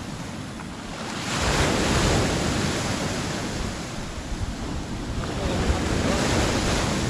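Small waves breaking and washing up a pebble beach, the surf swelling louder about a second in and again near the end.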